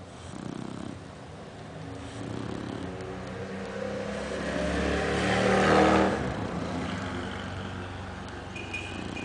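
A Shar Pei dog snoring, while a louder, rumbling sound with a steady pitch swells up over about four seconds, peaks past the middle and fades again.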